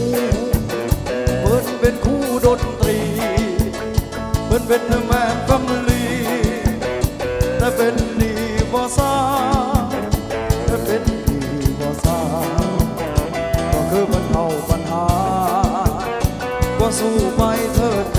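Thai ramwong dance music: a singer holding wavering notes over a band with a steady drum beat.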